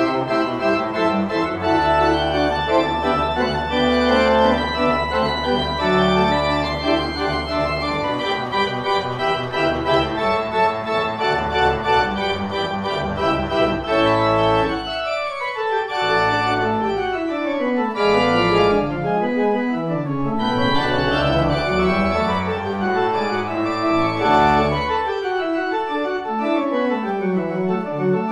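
Church pipe organ playing, plausibly the restored 140-year-old St Guthlac's organ: full sustained chords over a deep held bass note, then from about halfway fast runs of notes sweeping down and back up.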